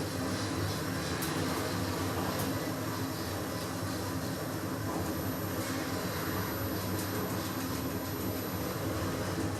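KONE EcoDisc machine-room-less lift travelling down, heard from inside the car: a steady rumble and hum with a few faint ticks.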